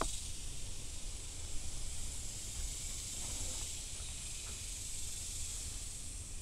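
A steady high hiss over a low rumble, with a few faint ticks near the middle.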